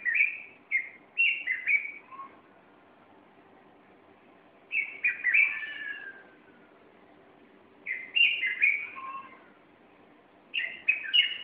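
A bulbul singing in four short phrases of quick, bubbling notes, each lasting about a second or a little more, with pauses of two to three seconds between them.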